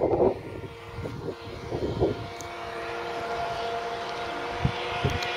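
Engine of a large RC speedboat running at speed across the water, a steady high-pitched drone that settles in about two seconds in.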